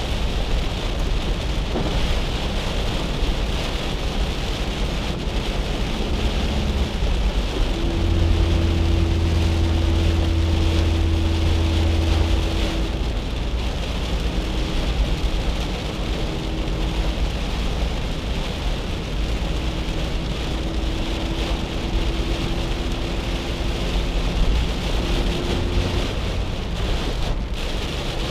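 Heavy rain on the roof and windshield of a 1997 Chevrolet Corsa Wind, with tyre hiss on the wet road, heard from inside the cabin. The car's 1.0 MPFI four-cylinder engine hums at a steady cruise under it, and its tone stands out more clearly from about eight seconds in for a few seconds.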